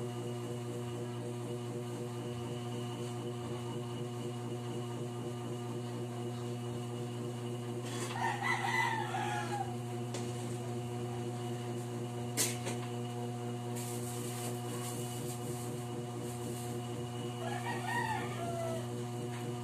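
A rooster crowing twice, about eight seconds in and again near the end, over a steady hum. A single sharp clink sounds about twelve seconds in.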